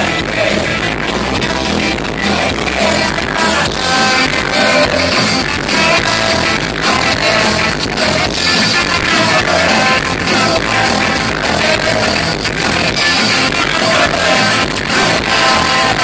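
A punk rock band playing live at full volume through a stage PA: electric guitars and a drum kit driving a fast song.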